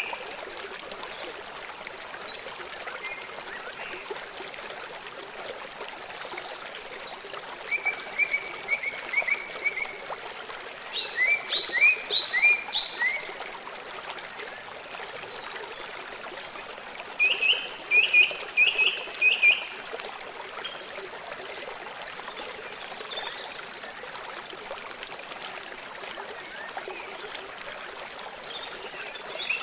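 A steady running stream, with three short runs of rapid chirping calls, four or five high notes each, a third and half of the way in.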